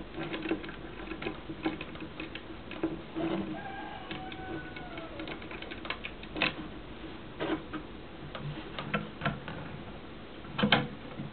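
Irregular small metallic clicks and taps as parts are worked by hand into the falling-block action of an 1874 Sharps rifle, with a sharper click about six seconds in and another near the end.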